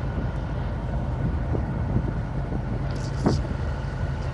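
Steady drone of a truck's engine and tyres at highway speed, heard from inside the cab, with a short knock about three seconds in.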